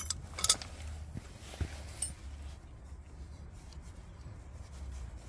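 A few light clicks and clinks of hand tools and metal parts being handled at a motorcycle engine, the two loudest about half a second and two seconds in, over a low steady rumble.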